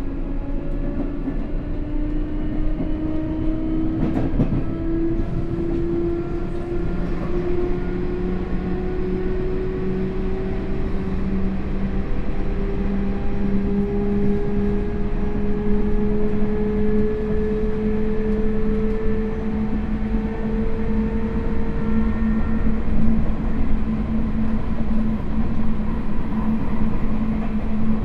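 Running sound of a Sotetsu 8000 series electric train with a Hitachi GTO-thyristor VVVF inverter. The motor and inverter whine rises slowly in pitch as the train gathers speed and fades out about 22 seconds in, over steady wheel-and-rail noise and a low hum. A single click comes about 4 seconds in.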